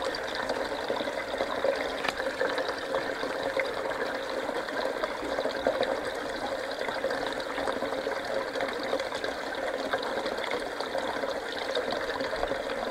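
Water running and trickling steadily in an aquaponics fish tank, a constant splashing with faint crackles through it.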